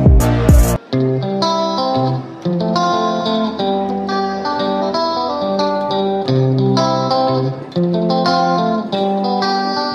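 Background music: a heavy electronic beat ends under a second in, followed by a plucked guitar melody with a steady rhythm.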